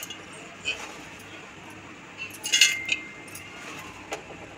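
Hard pieces of dried turmeric clinking and rattling as they are handled into a mixer grinder jar: a few short clattering bursts, the largest about midway with a brief metallic ring, and a single click near the end. The mixer motor is not running.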